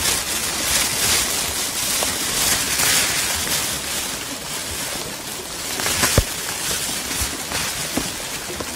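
Thin plastic raincoat rustling and crinkling as it is pulled on over the head and shoulders, over a steady patter of rain. A few sharp crackles of the plastic come after the middle.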